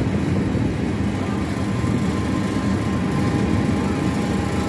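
Open-sided tourist road tram running steadily, heard from a passenger seat: a constant low engine and road rumble with a faint steady whine above it.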